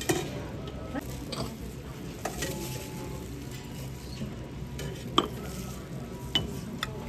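Buffet clatter: serving utensils and dishes clinking over steady room noise, with two sharper metallic clinks about five and six and a half seconds in.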